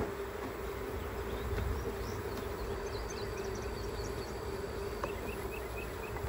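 Honey bees humming steadily around an open, inspected hive: a continuous mid-pitched drone of many wings.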